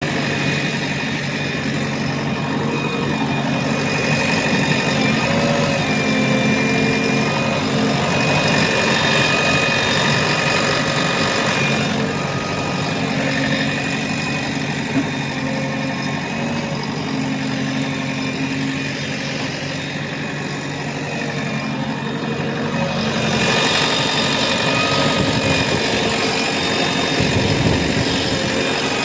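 JCB 3DX Plus backhoe loader's diesel engine running steadily at about 1500 rpm.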